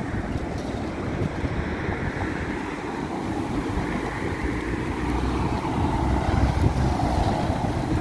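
Wind buffeting the microphone: a steady low rumble with gusty hiss, a little louder in the second half.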